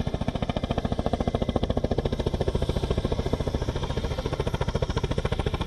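Kamov Ka-31 helicopter in flight, its two stacked contra-rotating rotors beating in a rapid, even chop that holds steady.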